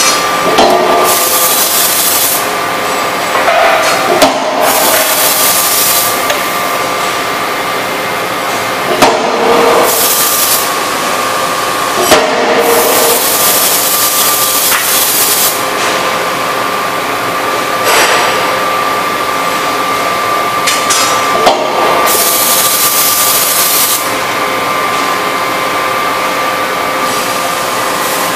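Die forging hammer working a red-hot billet: a steady machine hum, sharp strikes of the ram every few seconds (about five), and loud hissing bursts lasting a second or three.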